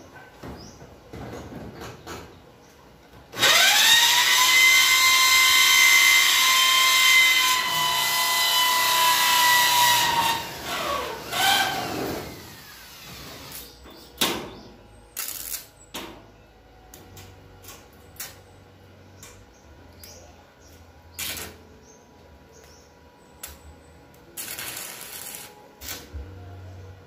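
Corded electric power drill drilling up into a hard steel C-purlin, the kind that tek screws fail to bite into. The motor spins up about three seconds in, runs at a steady high whine for about seven seconds, then winds down. Short clicks and brief bursts follow, with another short burst of noise near the end.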